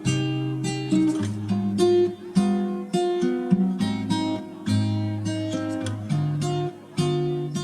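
Background music: acoustic guitar picked and strummed, one note or chord struck about every half second.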